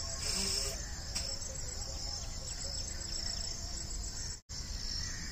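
Steady high chirring of insects, with a short forceful blow of air out through the nose about half a second in. The sound cuts out for an instant about four and a half seconds in.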